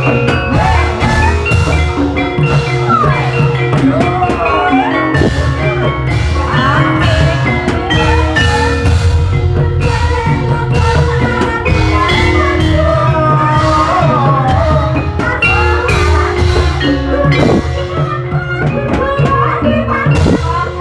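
Ebeg dance accompaniment: a Javanese gamelan-style ensemble with struck metal or bamboo keys carrying the melody over a busy drum pattern, plus gliding melodic lines.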